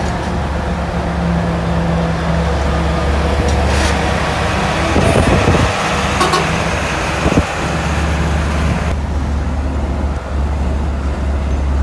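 Steady engine drone and road noise heard from inside a moving Volkswagen Kombi van in highway traffic. The hiss of wind and passing traffic grows louder around the middle, with a single knock about seven seconds in, and the higher hiss drops away about nine seconds in.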